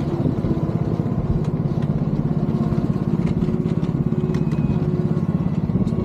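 Engine of a miniature railway diesel locomotive running steadily with a fast, even pulse as the train travels, heard from the carriages, with a few faint clicks over it.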